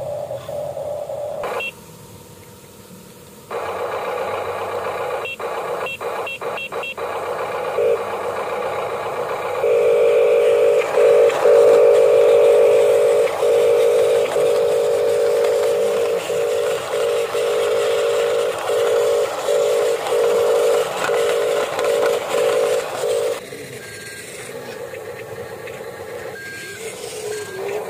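High electric whine of the small geared motors in radio-controlled toy construction vehicles. The steady tone starts and stops repeatedly as the controls are worked in short bursts, and it is loudest through the middle stretch.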